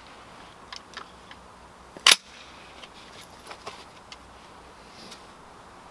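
A suppressed AR-15-type SPR rifle firing one shot, a single sharp report about two seconds in, with a few faint metallic clicks of handling around it.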